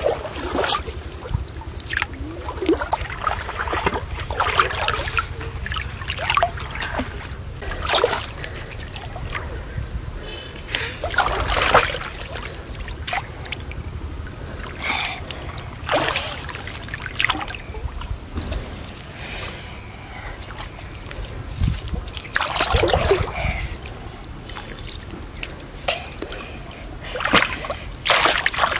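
Shallow muddy pond water splashing and sloshing in irregular, sudden bursts as a large fish thrashes and is grabbed by hand and put in a basket.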